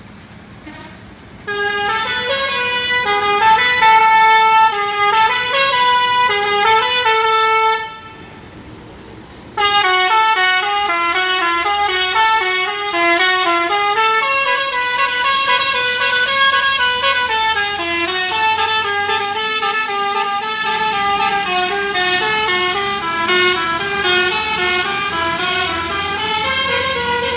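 Bus basuri-type musical air horn playing a tune of stepped notes, in two long runs with a short pause about eight seconds in.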